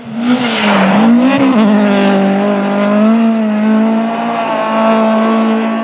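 Rally car's engine at high revs as it slides through a snowy corner and drives away, with a rush of tyre and snow noise as it arrives. The engine note dips and rises during the first second or so, then holds steady and fades near the end.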